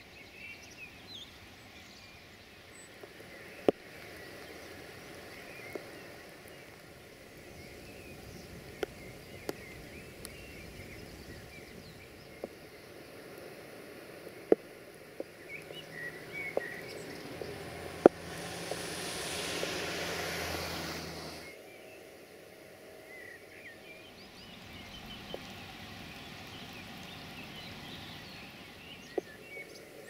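Steady rain ambience with scattered bird chirps and occasional sharp ticks, like drops striking something close by. About two-thirds through, a louder hiss with a low hum swells for a few seconds and then cuts off suddenly.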